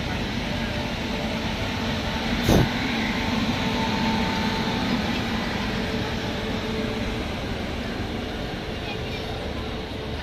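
Indian Railways WAP-5 electric locomotive humming steadily with a low rumble, several steady tones running through it, and one sharp knock about two and a half seconds in.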